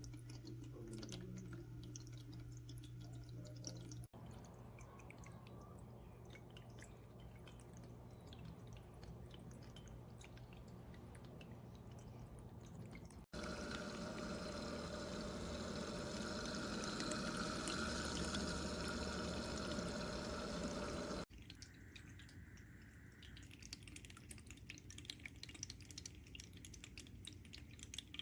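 Tabletop rock fountain's water trickling and dripping over the rocks, steady, with the sound changing abruptly a few times; it is loudest in the middle stretch.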